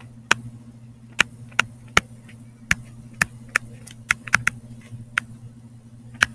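A stylus tapping and clicking on a tablet screen while handwriting: sharp, irregular ticks about two a second, over a steady low hum.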